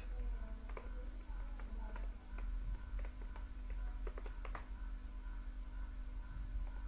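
Typing on a computer keyboard: a run of irregular keystrokes, ending with a louder key press about four and a half seconds in, over a steady low hum.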